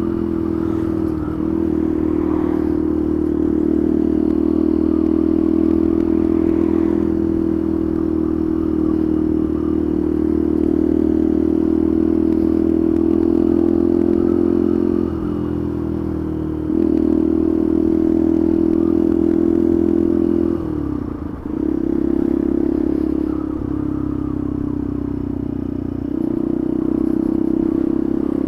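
Motorcycle engine running at steady road speed, heard from the rider's seat. The revs ease off briefly about halfway through, then drop sharply and pick back up around three-quarters of the way in, as on a throttle lift or gear change.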